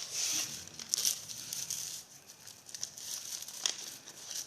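A sheet of paper being folded and creased by hand, rustling and crinkling in several short bursts.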